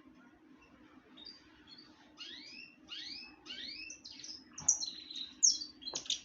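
Songbirds singing: after a quiet second, a run of repeated swooping whistled notes, about three a second, then several loud, high, sharp chirps, with a single sharp click just before the end. A faint steady hum sits underneath.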